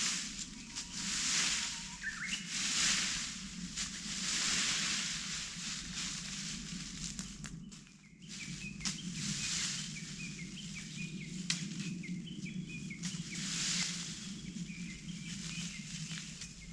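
Dry fallen leaves being swept together in slow, irregular swishing strokes, with small birds chirping faintly in the background.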